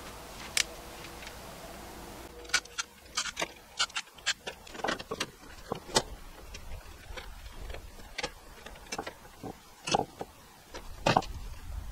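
Irregular light clicks and taps, with a few louder knocks, from hand work inside an electrical breaker panel as breakers and circuit wires are moved.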